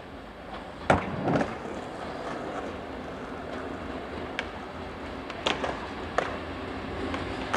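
EF81 electric locomotive approaching with a freight train: a rolling rumble that grows louder, broken by several sharp knocks of its wheels over the rails, the loudest about a second in.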